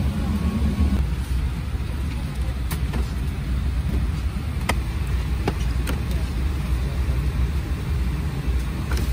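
Steady low rumble of an Embraer E175's cabin during boarding, its air and aircraft systems running with the engines not yet started, with a few sharp clicks spread through it.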